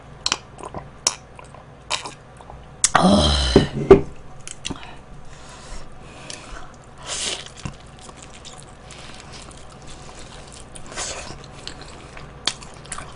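Close-miked eating of crispy fried chicken: crunchy bites and chewing, with scattered short crackles. There is one louder, longer noisy burst about three seconds in.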